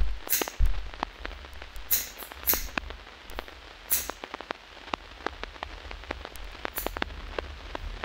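Hair-cutting scissors snipping about five times at irregular intervals. Under them are many faint crackling clicks and a steady low hum.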